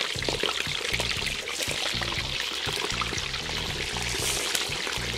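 Chicken pieces deep-frying in hot vegetable oil in a cast-iron kazan: a dense, crackling sizzle. Background music with a bass line plays throughout.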